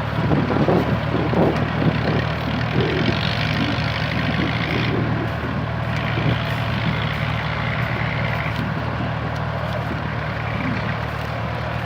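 Kubota tractor's diesel engine running steadily, with a hiss that rises and falls a few seconds in.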